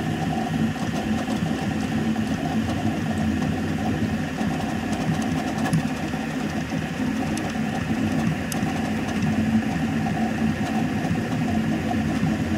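FDM 3D printer printing: its stepper motors buzz and whir steadily, shifting a little as the print head moves back and forth.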